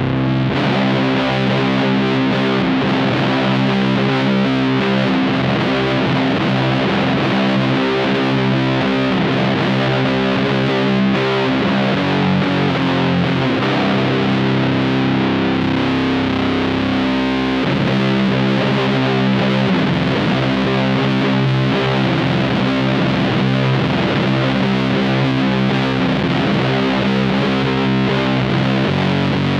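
Electric guitar played through a one-knob fuzz pedal into a '69 Laney Supergroup valve amp: a heavily distorted riff of long sustained chords that change every few seconds.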